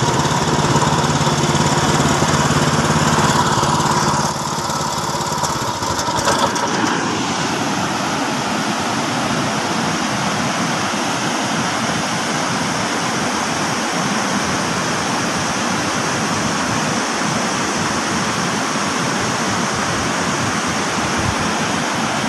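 A small engine runs steadily for the first few seconds and fades out about six seconds in, leaving a steady rushing noise of floodwater pouring over a long embankment.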